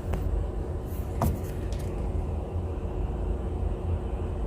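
Belt-driven HVAC blower running with a steady low rumble and hum, with a few sharp clicks, the loudest about a second in.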